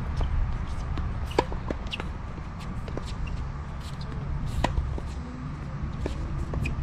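Tennis ball struck by rackets and bouncing on a hard court during a rally: sharp pops a second or more apart, the loudest about a second and a half in and again past four and a half seconds. A steady low rumble runs underneath.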